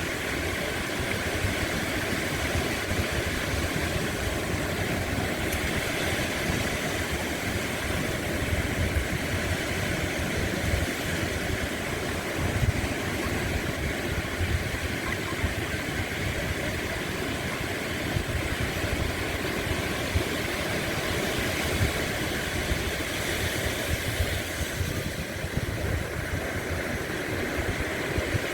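Sea waves breaking and washing on a beach: a steady rush of surf with a constant low rumble.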